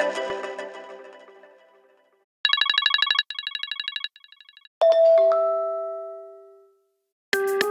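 Mobile phone ringtones played one after another: a short electronic melody fades out, then a fast electronic trilling ring sounds in three bursts, each quieter than the last, followed by a single chime that rings out, and another synth melody starts near the end.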